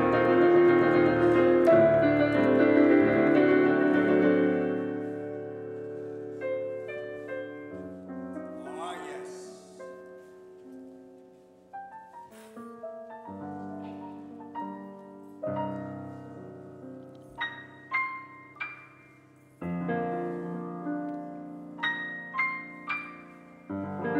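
Digital piano being played: loud, full chords for the first few seconds that die away, then a slow, sparse passage of softer chords and single notes with short pauses between them.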